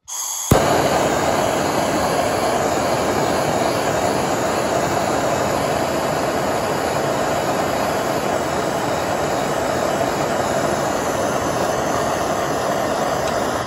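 Handheld gas blowtorch: a brief hiss, a sharp pop about half a second in, then a loud, steady rushing flame until it cuts off suddenly.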